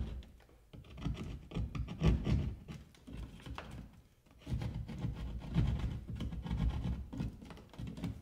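Hand drywall saw cutting through a piece of drywall with rasping back-and-forth strokes, in two spells with a short pause about four seconds in.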